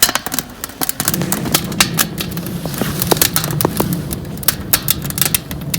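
Wood fire crackling with frequent irregular sharp pops, over a low steady rumble that starts about a second in.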